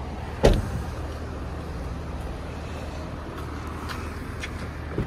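Toyota Yaris Cross tailgate slammed shut about half a second in, one loud thud over a steady low hum. A smaller click near the end.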